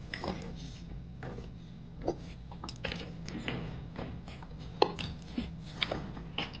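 Irregular light clicks and knocks, several a second, of small hard objects being handled, over a low steady hum.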